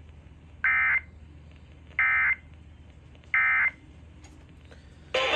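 Three short bursts of Emergency Alert System digital data tones (SAME code), about 1.3 seconds apart: the End of Message signal that closes an EAS alert. Just before the end, louder broadcast audio cuts in suddenly.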